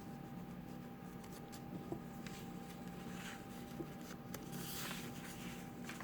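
Paper pages of a handmade junk journal being turned and handled: soft rustles twice, a few light ticks, over a faint steady hum.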